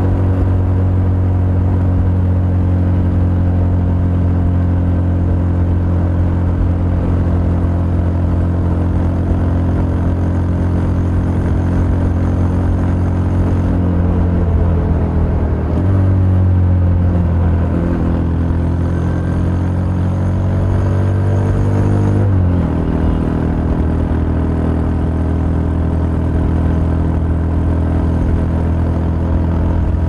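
Crossfire Korak 125cc motorcycle engine running at steady high revs, heard from the rider's seat. About halfway through, the revs dip and climb again, then drop suddenly before settling steady.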